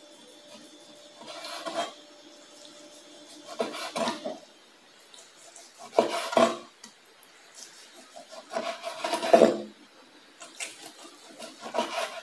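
Large kitchen knife slicing boiled beef tongue on a wooden cutting board: about six short sawing strokes, each under a second, with pauses between.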